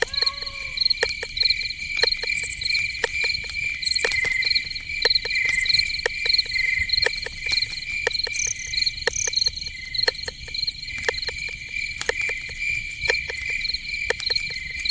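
Night insect chorus of crickets chirping in a steady repeating rhythm at two high pitches, with irregular sharp clicks scattered throughout.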